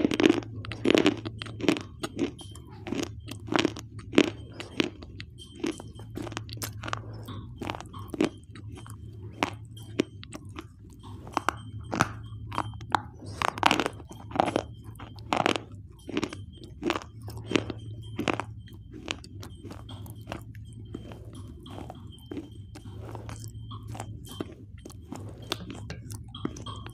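A person biting and chewing pieces of a hard, dry white bar, with many sharp, irregular crunches close to the microphone. A steady low hum runs underneath.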